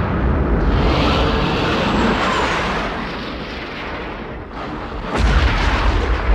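Battle explosions: a continuous rumbling din, with a heavier boom setting in about five seconds in.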